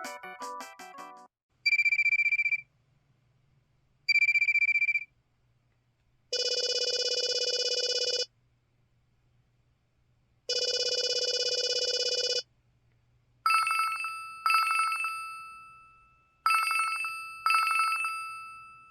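LG LH5000 mobile phone ringtones and alert tones, played one after another by its Yamaha YMU792-P sound chip. A melody ends about a second in, then come two short high beeps, two longer buzzy tones of about two seconds each, and four chime-like rings that each die away.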